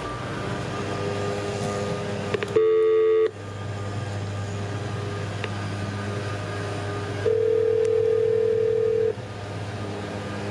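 Select Engineered Systems door-entry intercom call box ringing through its speaker, placing a call: a short, buzzy tone about two and a half seconds in, then a longer steady ring lasting almost two seconds, over a steady low hum.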